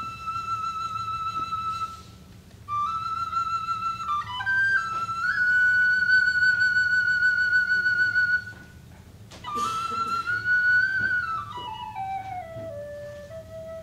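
A flute-type wind instrument playing a slow melody of long held high notes, with two short breaks. Near the end it steps down note by note to a lower held note.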